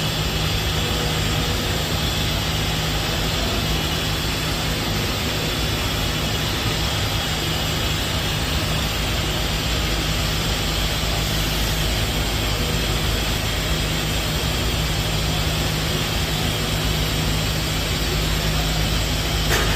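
Okuma MX-50HB CNC horizontal machining center running under power: a steady mechanical hum over an even rushing noise.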